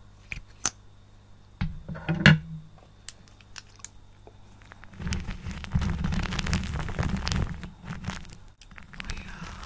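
Lipstick rubbed against the microphone: scattered soft clicks and a brief scrape, then from about halfway a continuous crackly rubbing with low rumbling bumps close on the mic.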